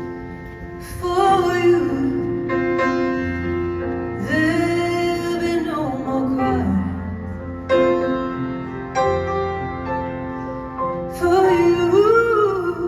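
A song performed live: a woman singing in long phrases over held chords from the accompanying instruments.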